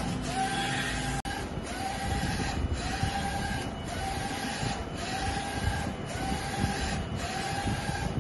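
Mimaki wide-format inkjet printer printing, its print-head carriage motor whining in a short rising-then-steady tone on each pass, about once a second, over a constant mechanical hum.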